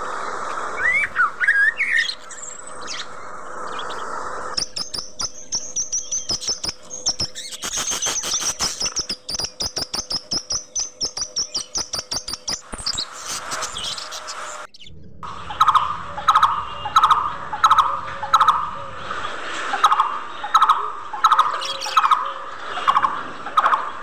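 Budgerigars chirping and chattering: first gliding chirps, then fast clicking chatter under a high warble. After an abrupt break about two-thirds through, a short chirping call repeats about twice a second.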